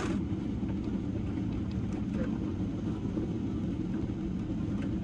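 Steady low cabin rumble of a Boeing 777-300 taxiing after landing: its engines at idle and its wheels rolling over the taxiway. A single sharp click at the very start.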